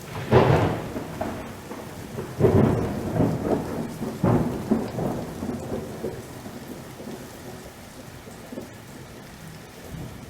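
Thunderstorm with hail: thunder rumbling in three louder rolls over the first half, fading off, above the steady noise of rain and hail falling.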